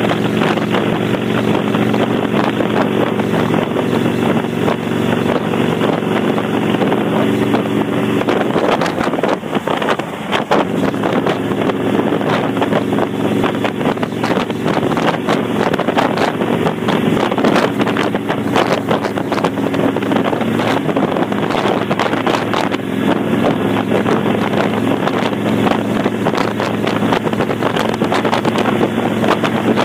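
Kawasaki Vulcan 800's V-twin engine through V&H Straight Shots pipes with the baffle plug removed, running at a steady cruising speed under way, with wind buffeting the microphone. About nine seconds in, the steady note breaks up and dips for a second or two, then settles back to a steady drone.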